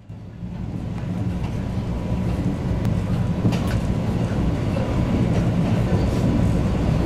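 A train running on its rails: a steady low rumble that fades in at the start, with a few scattered clicks.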